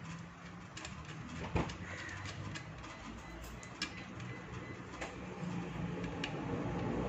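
A few sharp clicks as the chainsaw's guide bar and chain are handled and seated on the body, the loudest about a second and a half in. Behind them a bird, likely a dove, is cooing.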